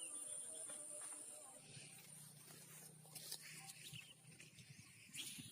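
Faint countryside ambience: a steady high insect buzz and a few bird chirps in the first second or so, a low hum in the middle, and two brief rustles or knocks, the second near the end.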